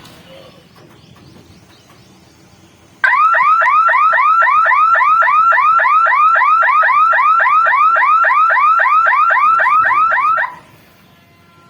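Electronic warning siren at a railway level crossing, a rapid rising sweep repeated about four times a second. It starts abruptly about three seconds in and cuts off about seven seconds later.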